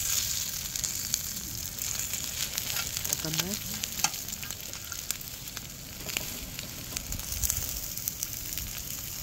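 Beef tripe and fatty intestines sizzling steadily on a hot griddle pan, with metal tongs clicking against the pan now and then as the pieces are turned.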